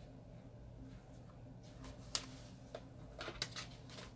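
Faint handling of paper sticker sheets, with a few light taps and rustles about two seconds in and again near three and a half seconds, over a steady low hum.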